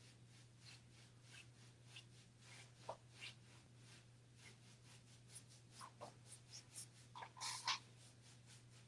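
Faint, quick, repeated strokes of a paintbrush rubbing across a painted wooden wardrobe door, with a few louder brush scrapes in the second half, the loudest about seven and a half seconds in. A steady low hum runs underneath.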